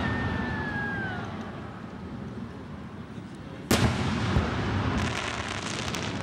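Aerial firework shells at a fireworks display: the rumble of one burst dies away, then a single loud boom about four seconds in, echoing and rumbling, followed by a brief run of faint crackles.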